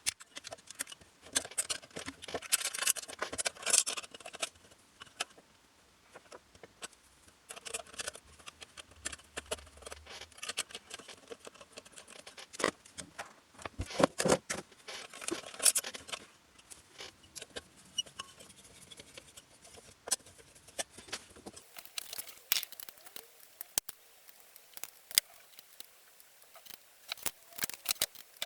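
Irregular small clicks, scrapes and rattles of metal parts and tools being handled, with bursts of rustling and scraping every few seconds; no motor running.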